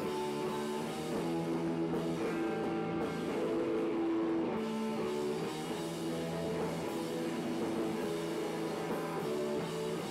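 Rock band playing live: sustained guitar chords shifting every second or two over a drum kit.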